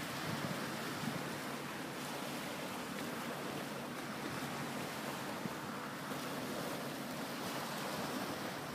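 Small waves breaking and washing over a shingle beach: a steady rush of surf.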